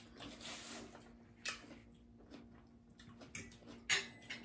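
Quiet eating sounds: a short rustle early, then a few sharp, wet clicks and smacks, over a faint steady hum.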